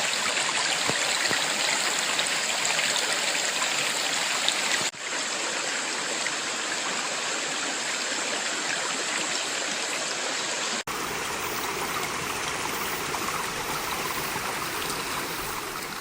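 Mountain stream flowing, a steady rush of water. It breaks off for an instant about five and eleven seconds in, coming back fuller and deeper after the second break, and begins to fade at the end.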